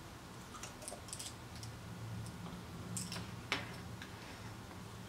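Light clicks and taps of small tools and parts being handled on a soldering workbench, with one sharper click about three and a half seconds in, over a low steady hum.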